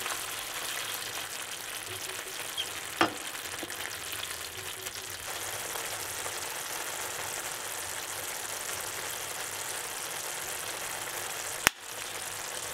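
Minced meat and eggs sizzling steadily as they fry in a pan. A short sharp click comes about three seconds in, and another near the end.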